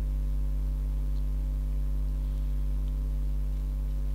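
Steady low electrical mains hum on the recording, with no other sound standing out.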